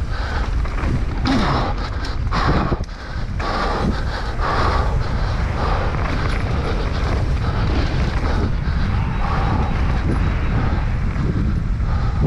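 Wind rushing over the microphone of a camera carried on a mountain bike ridden fast down a trail, over a steady low rumble, with the bike clattering irregularly over rough ground.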